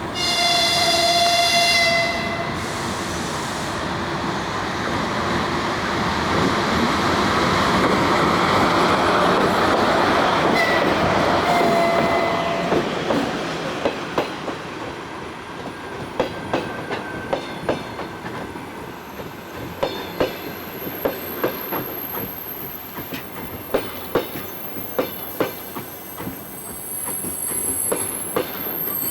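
2ES4K electric locomotive arriving with a passenger train: a horn blast for the first two seconds and a shorter one about eleven seconds in, over the heavy rumble of the locomotive passing. The passenger cars then roll by, their wheels clicking over the rail joints, with a faint high squeal near the end.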